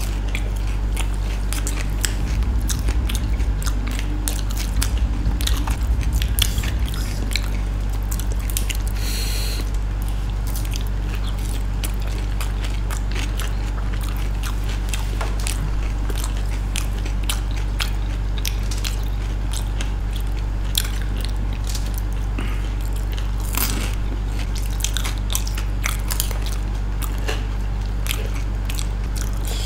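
Close-up chewing and crunching of dahi puri (golgappe, crisp puri shells filled with yogurt) by two people eating. The crunching is loudest a few seconds in, over a steady low hum.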